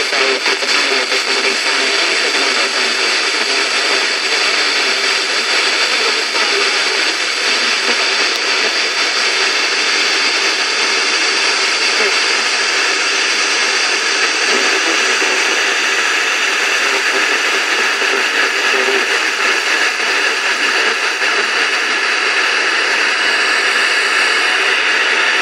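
FM radio tuned to 91.8 MHz, putting out steady loud static hiss with a weak distant station barely coming through under it: long-distance reception by sporadic-E skip.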